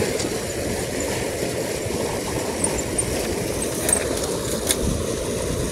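Steady rushing of river water pouring over a small weir, with a few faint clicks.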